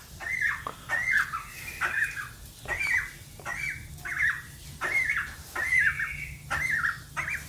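White domestic duck calling repeatedly as it walks, short calls that each drop in pitch, about two a second.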